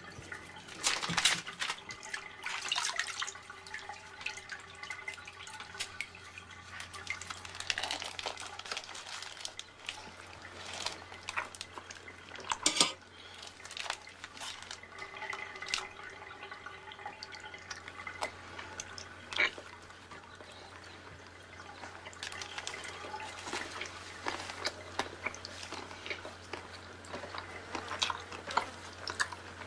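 Bathwater dripping and lapping in a tub, with scattered small clicks and crinkles as foil is peeled off a chocolate bar, over a steady low hum.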